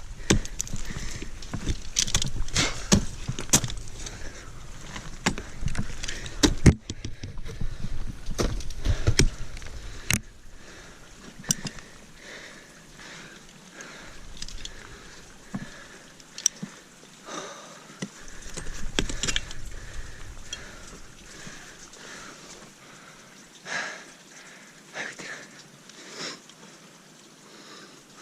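Ice tools and crampons striking ice: sharp impacts come in quick succession over a low rumble for the first ten seconds or so, then occasional single strikes.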